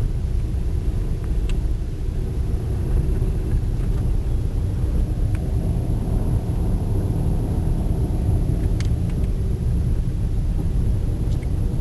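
Steady low rumble of a car moving slowly through traffic, with a few faint clicks.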